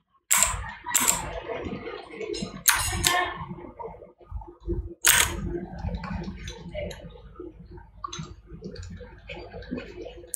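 Computer mouse and keyboard clicking at a desk: a handful of sharp, irregular clicks with quieter handling noise between them.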